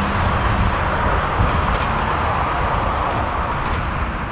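Jet airliner engines running: a steady rush that swells slightly through the middle and eases near the end, with a low steady hum in the first second.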